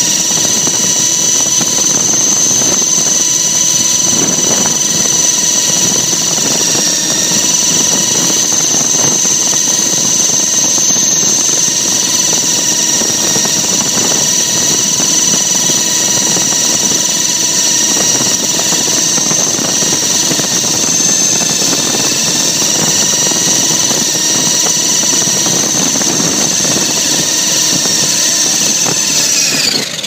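Small radio-controlled helicopter's motor and rotors running steadily with a loud high whine, heard from the camera on board. Right at the end the whine starts to fall in pitch as the machine winds down.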